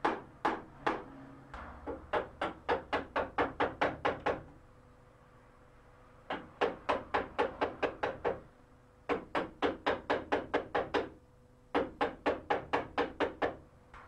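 Mallet driving a wood chisel into the edge of a wooden door to cut the rebate for a lock's faceplate: quick runs of sharp knocks, about four a second, in several bursts with short pauses between them.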